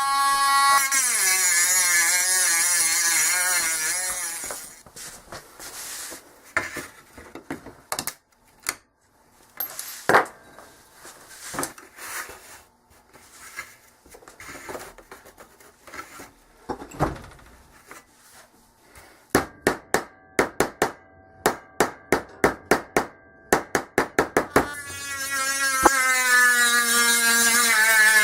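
A small power tool whining at high speed for a few seconds, its pitch wavering under load; then scattered taps and handling, a quick run of sharp clicks, and the tool whining again near the end.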